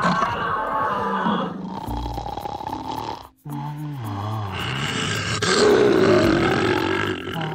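Dubbed wild-animal sound effects: mixed animal calls at first, then, after a brief gap and a short low bouncing tune, a tiger roaring loudly from about five and a half seconds in.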